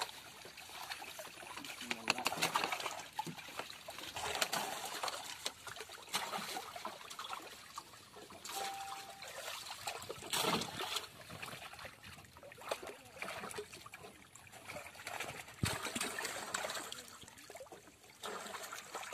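Water splashing and dripping in irregular bursts as live fish are scooped by hand out of a fine-mesh net in shallow water and dropped into water-filled plastic drums.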